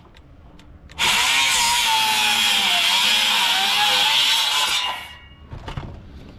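Handheld circular saw cutting a length of timber. It starts about a second in and runs for about four seconds, its pitch sagging and wavering as the blade bites. It then stops, followed by a couple of light knocks.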